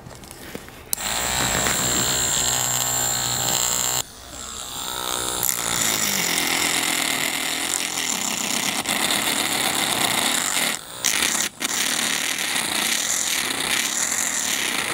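Homemade rotary tool's 12-volt DC motor switches on about a second in and runs with a steady whine. It cuts out abruptly about four seconds in and builds back up, then runs with the spinning sanding drum grinding against a small workpiece, a steady rasping scrape over the whine.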